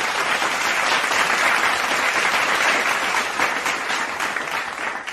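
Recorded crowd applause played as a sound effect: many hands clapping, swelling in the first second and easing off toward the end.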